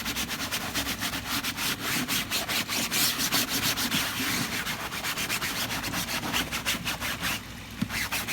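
A sponge soaked in CLR scrubbed quickly back and forth over the rotary drum filter's mesh screen, a rhythmic rasping rub to loosen calcium and lime scale, with a short pause about seven seconds in.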